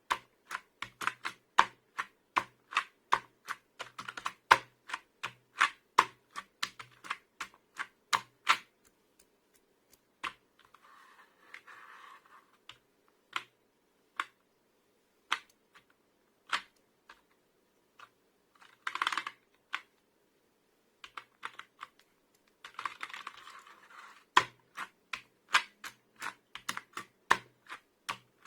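Membrane computer keyboard keys being tapped, fast and dense for the first several seconds, then sparser single presses in the middle, with a few short stretches of soft noise between them, and quick runs of taps again near the end.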